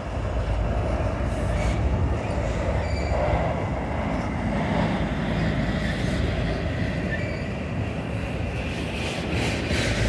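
Loaded autorack freight cars rolling past slowly, a steady rumble of steel wheels on rail with faint high wheel squeals now and then.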